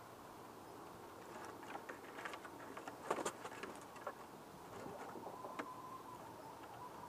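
Hens' claws scratching and tapping on a wooden coop ramp as they come out of the coop, with a louder flurry about three seconds in. A faint, soft held hen call follows later.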